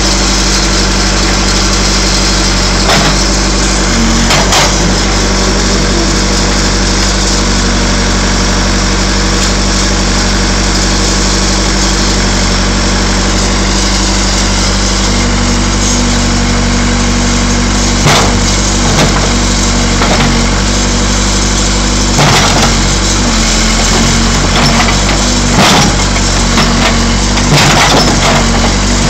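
Case 580 Super E backhoe's engine running steadily under load, with its pitch rising about halfway through. Over it come several loud crunching and snapping crashes of sheet metal as the bucket crushes a pickup truck bed, most of them in the second half.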